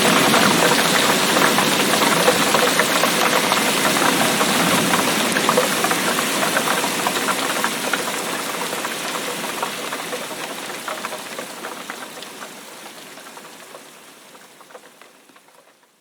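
Heavy rain pouring, a dense patter of countless drops. It fades out gradually over the second half until it is gone.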